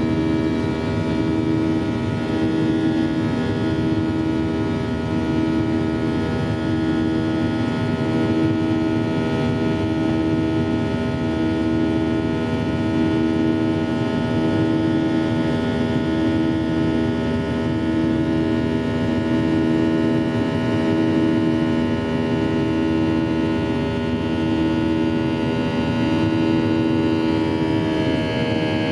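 Boeing 737-800 cabin noise during the climb after takeoff: the steady drone of its CFM56-7B turbofan engines heard inside the cabin, made of several held tones. One tone pulses slowly and evenly throughout. Near the end the engine note shifts.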